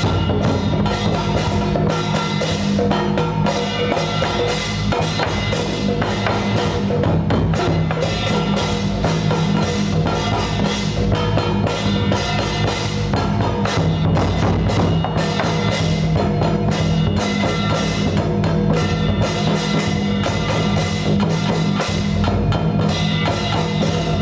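Continuous ceremonial music built on drum and wood-block percussion, with rapid clicking strokes over steady held low tones.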